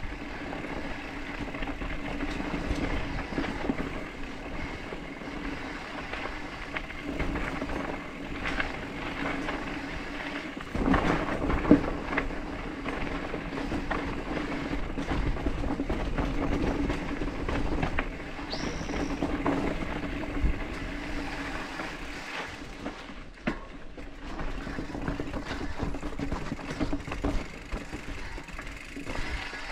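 Mountain bike rolling over a dirt trail: steady tyre and trail noise with the bike rattling and knocking over bumps, and a brief high squeak about two-thirds of the way through.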